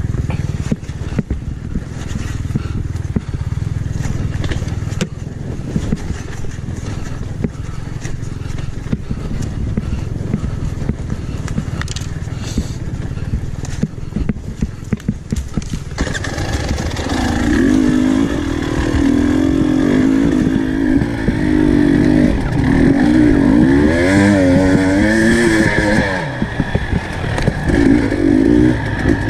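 GasGas dirt bike engine running while riding a rough trail, low and steady at first. From about halfway it revs up and down repeatedly with the throttle. Scattered clicks and knocks are heard along the way.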